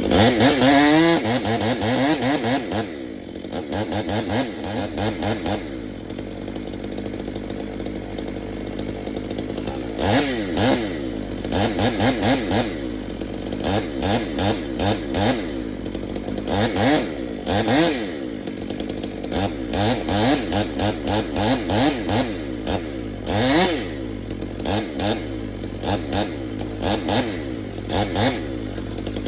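Gasoline chainsaw revving up hard at first, then running near idle for several seconds, then throttled up and down in many short bursts.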